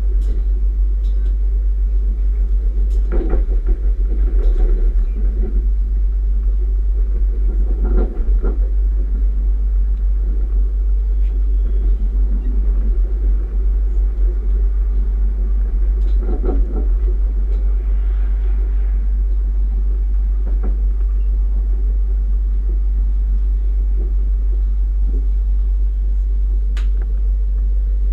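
Steady low rumble of a moving SNCF Bombardier electric multiple unit, heard from inside the carriage, with three louder knocks spread through it.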